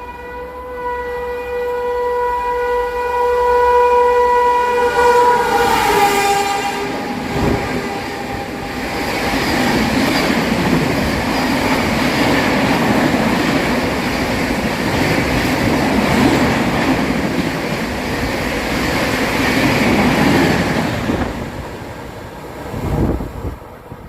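An Indian Railways express train sounding a long, steady horn for about six seconds, the pitch dipping slightly as it ends. Then the rush and rattle of the coaches passing through at high speed without stopping, fading away near the end.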